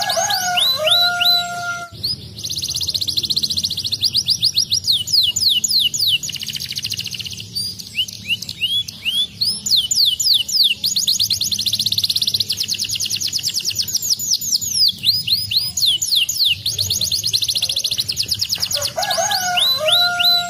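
Domestic canary singing in long, fast trills of rapidly repeated sweeping notes, with a lower whistled phrase near the start and again near the end.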